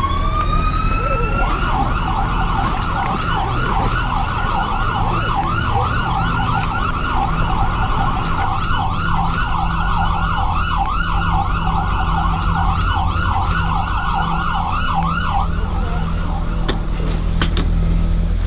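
An emergency vehicle's electronic siren winds up in a rising wail, then switches to a fast yelp that runs for about fourteen seconds before cutting off. A steady low rumble lies underneath.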